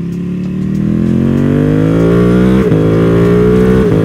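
BMW M1000R's inline-four engine pulling hard under acceleration, its pitch climbing steadily, with two brief breaks, about two and a half seconds in and near the end, as it shifts up a gear.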